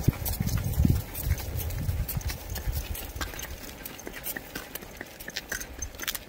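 Hooves of a cart pony and a small filly clip-clopping at a walk on a gravel road shoulder, a steady patter of irregular strikes. A low rumble is strong in the first second, then fades.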